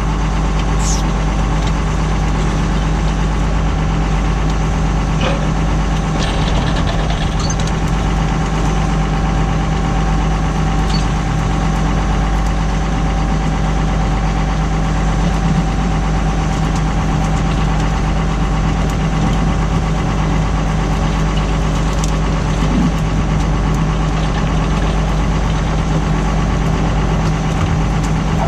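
Tractor engine running steadily while pulling a plough, with a few faint ticks over it.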